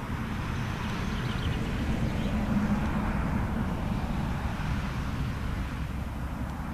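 Nordex N90 wind turbine's rotor turning, the blades making a whooshing swish that swells to a peak midway and eases off again, over a steady low rumble.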